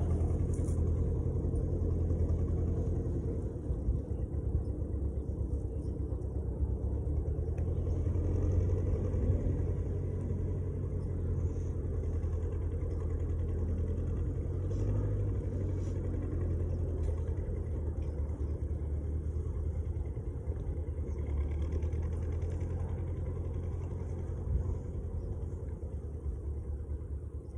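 Tractor engine running steadily at a low hum, with no revving.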